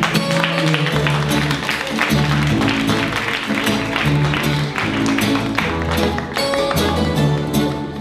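Lively instrumental music: sustained low notes under a quick run of sharp percussive strokes.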